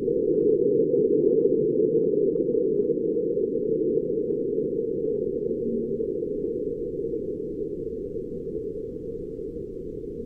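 Seismometer recording of a marsquake converted to sound: a low rumble that slowly fades, with faint scattered ticks in the first few seconds.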